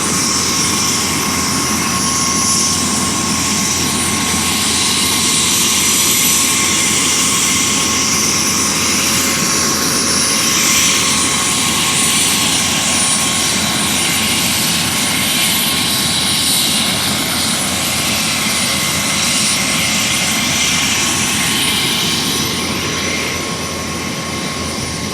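Helicopter running, a loud steady noise with a constant whine over it, easing slightly near the end.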